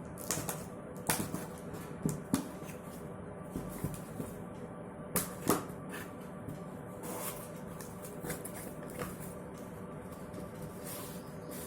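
Retail packaging of a wireless mouse being opened and handled: scattered clicks, taps and rustles, a few of them sharper, over a faint steady hum.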